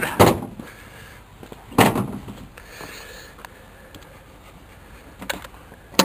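A few short knocks and clunks from hands working in a truck's engine bay, the loudest just after the start and another about two seconds in, with small clicks near the end; the engine is not running.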